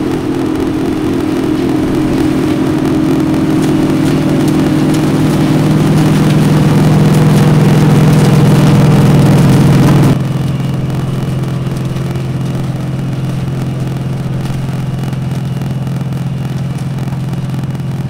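OXBO 9630 self-propelled corn harvester running under load, a loud, steady engine drone that grows louder over the first ten seconds. About ten seconds in it switches abruptly to a quieter, lower steady drone.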